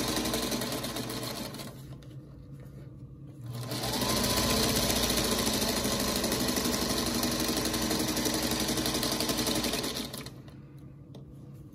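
Singer Featherweight sewing machine stitching a seam. It runs, pauses for about two seconds, then the motor whines up to speed and it sews steadily for about six seconds before stopping near the end.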